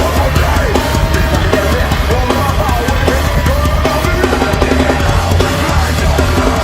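Heavy metal band playing live: fast, dense drumming with a busy bass drum under distorted guitars, and a wavering melodic line riding over the top.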